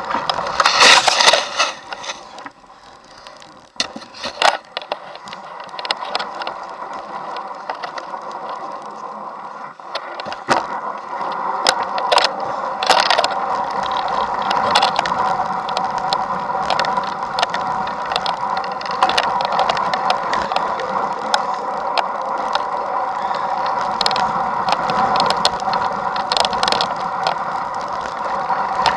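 Fatbike being ridden over a snowy forest trail: its drivetrain and fat tyres make a steady mechanical whirr that grows louder and holds from about a third of the way in, with scattered clicks and knocks from bumps along the trail.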